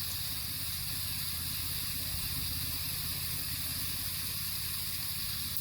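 Steady outdoor background hiss with a constant high-pitched whine in it, holding at an even level with no distinct events.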